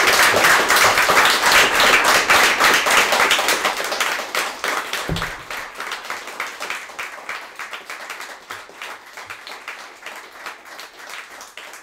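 Audience applauding, loudest over the first few seconds and then gradually dying away as the clapping thins out. A brief low thud about five seconds in.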